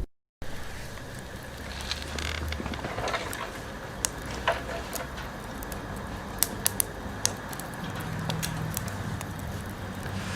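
Wood fire crackling in a stainless fire pit, with a scatter of sharp pops over a steady hiss.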